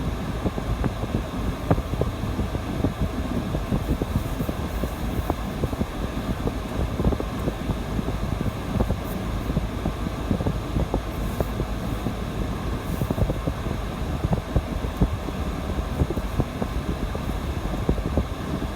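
Steady low rumble of wind buffeting the microphone with a vehicle's engine running underneath; no distinct events stand out.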